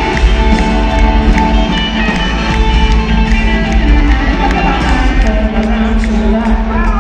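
A rock band playing live and loud in an arena, with electric guitars and drums.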